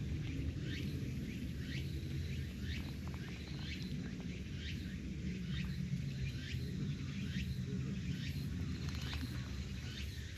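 A bird calling over and over in short, high, falling chirps, roughly one every two-thirds of a second, over a steady low rumble.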